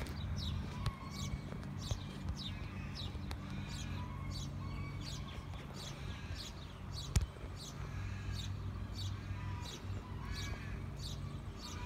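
Birds chirping: quick, high falling chirps repeated several times a second, with some lower calls among them, over a low steady hum. A single sharp knock sounds about seven seconds in.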